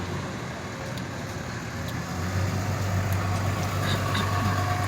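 A motor vehicle's engine running steadily as a low hum, growing louder about two seconds in.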